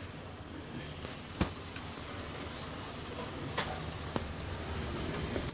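Handling noise from a workbench: a few sharp clicks and light knocks, the loudest about a second and a half in and two more near the end, over a steady low background hum.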